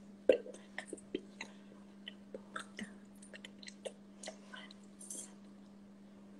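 Scattered soft clicks and smacks over a steady low hum: mouth and lip noises and hands touching from people signing close to the microphone.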